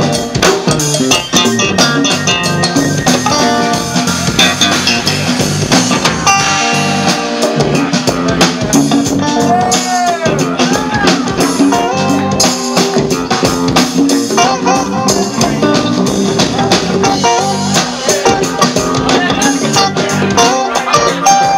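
Live jam-band rock: electric guitar playing over electric bass and a drum kit, with bent, gliding guitar notes about ten seconds in.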